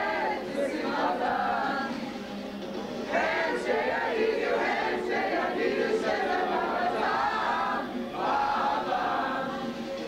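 A group of teenage boys singing together, in phrases a few seconds long with short breaks between.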